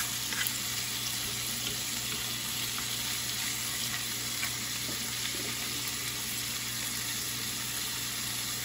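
Raw bacon sizzling steadily in a frying pan as it renders in its own fat, with a few faint clicks of a metal fork moving the strips.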